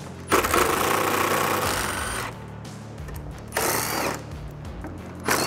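Cordless impact driver with an extension and 10 mm socket backing out bolts from plastic bumper trim, in three runs: one of about two seconds, then two short bursts.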